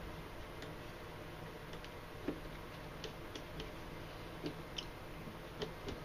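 Faint, irregular small clicks and creaks of paracord being pulled tight through a knot by hand, over a low steady hum.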